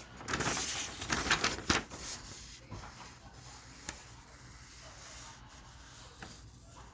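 Paper rustling and crinkling as the pages of a printed newspaper sales ad are turned, loudest in the first two seconds, with one sharp tick about four seconds in and only faint handling after.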